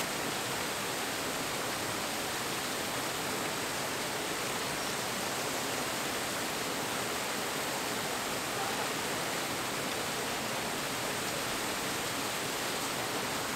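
Small waterfall pouring over rock ledges into a pool: a steady, even rush of falling water.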